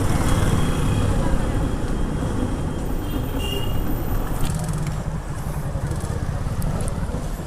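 Yamaha FZ16's single-cylinder engine running at low speed, with steady road and traffic noise around it.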